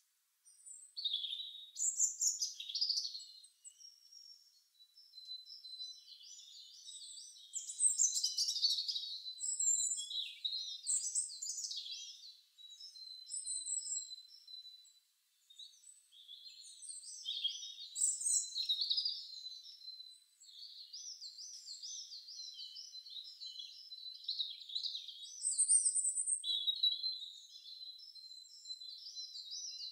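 Birdsong: high chirps and quick warbling trills in phrases with short pauses, thin, with no low sound under it.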